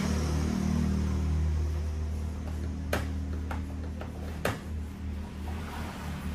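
Background music with sustained low notes, slowly fading, over which come four sharp clicks about half a second apart in the middle: a car door's plastic trim panel being pressed by hand so its clips snap into the door.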